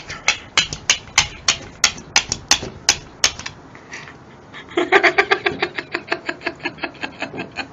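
Shiba Inu pressed against a glass pane, its tongue and paws on the glass: sharp taps about three a second, then after a short pause a quicker run of pitched squeaks from about five seconds in.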